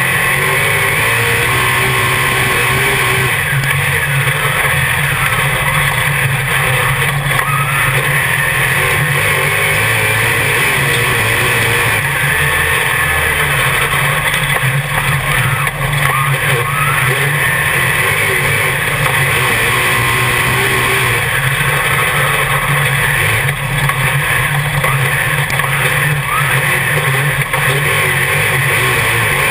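Dirt modified race car's V8 engine running hard at racing speed, heard from inside the cockpit. It is loud and continuous, its pitch rising and falling again and again.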